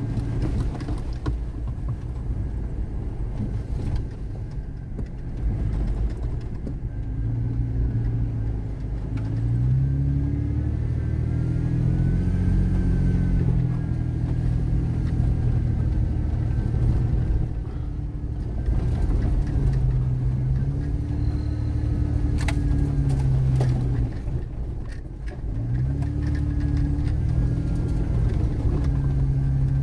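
Car engine and tyre rumble heard from inside the cabin while driving a sandy dirt trail, the engine note rising and falling again and again as the car speeds up and slows down.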